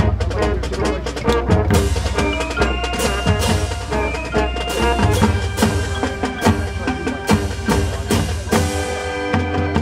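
High school marching band playing its field show: marching drums and front-ensemble mallet percussion with brass, rapid drum and mallet strikes throughout and held chords coming in about three seconds in.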